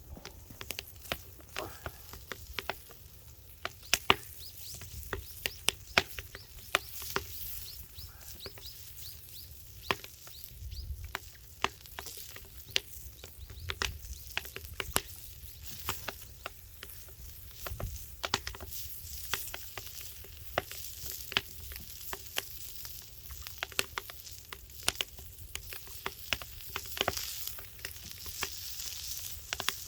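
Steak sizzling as it cooks on a burning log, with a steady hiss and frequent sharp, irregular pops and crackles.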